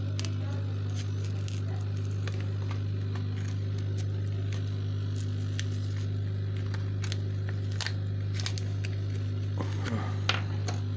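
Steady low hum of a hot-air rework blower left running, with scattered scratching and small clicks as a plastic card is worked under a tablet's touchscreen glass, parting the heat-softened adhesive.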